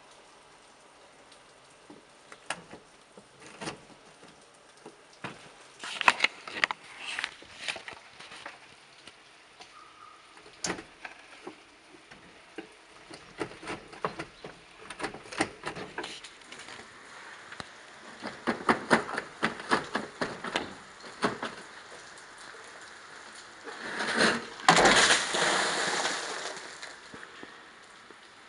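A wooden plank knocking icicles and ice off a roof edge: repeated sharp cracks and clinks of ice breaking and shards falling, coming in clusters, with a longer, louder clatter of falling ice near the end.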